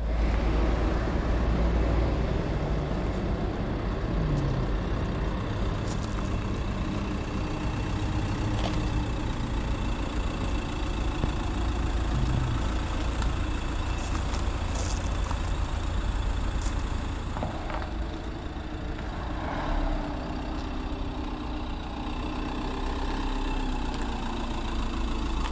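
Carthago C-Tourer motorhome's engine running steadily at low revs as it drives slowly out of a hall and across a paved yard.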